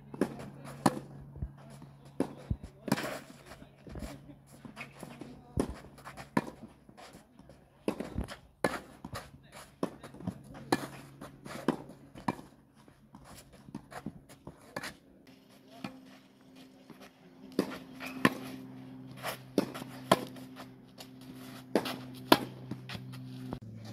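Tennis balls struck by a racket and bouncing on a clay court during a rally: sharp single pops, about one every second, some louder than others. A steady low hum runs underneath and shifts in pitch about fifteen seconds in.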